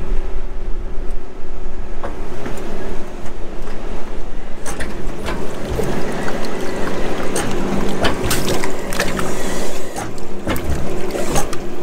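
Heavy diesel engine of a Case IH 580 Quadtrac tractor running steadily, with scattered clicks and knocks over it from a few seconds in.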